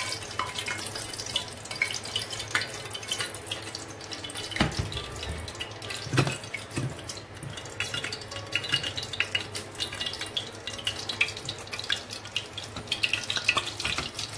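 Hot oil crackling and sizzling in a frying pan, with a couple of dull knocks of cookware about four and a half and six seconds in.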